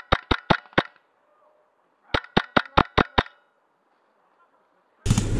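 Wolverine MTW high-pressure-air airsoft rifle firing rapid semi-automatic shots: two strings of about six sharp cracks each, a little over a second apart. Near the end a sudden loud rustling and handling noise starts as the shooter moves.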